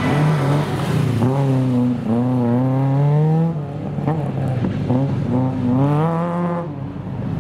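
Racing hatchback's engine revving hard as the car is driven around slalom cones. The pitch climbs twice and falls back between, where the driver lifts off.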